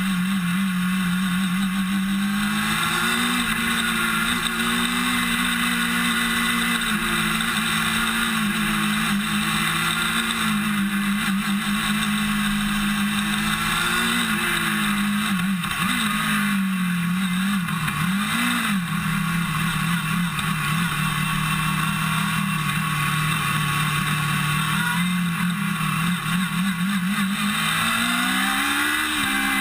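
Formula SAE race car's engine heard from its own roll bar, running hard and steady at speed. Its pitch wavers and dips for a few seconds around the middle as the car slows, and climbs near the end as it accelerates again.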